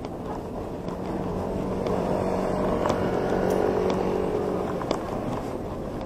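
Motorbike engine running in street traffic, its steady note swelling about a second in and dropping away near the end.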